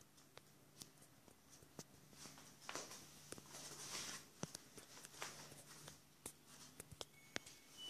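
Faint, scattered clicks and soft scuffles of month-old bichon frise puppies' paws and claws on a hard floor as they move about and nose at toys, over a low steady hum.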